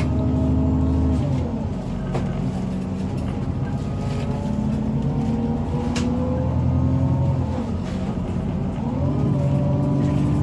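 Diesel engine of a Volvo B9TL double-decker bus running under way, heard from on board. The engine note falls away about a second in, comes back up around the middle, drops again and rises once more near the end as the bus eases off and pulls again.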